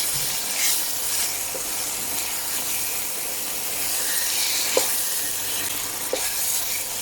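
Chicken curry sizzling in its oil in a pot on low heat, nearly cooked down, a steady hiss with a few faint clicks.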